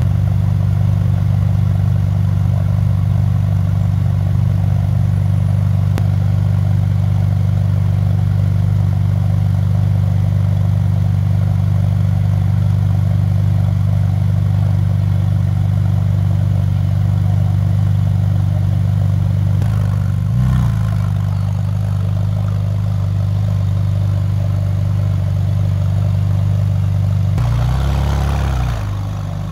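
Ferrari 458 Speciale's 4.5-litre V8 idling steadily, heard close at the exhaust. The engine note shifts briefly twice, about two-thirds of the way in and again near the end.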